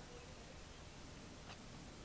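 Near silence: a faint background hiss, with one faint click about one and a half seconds in.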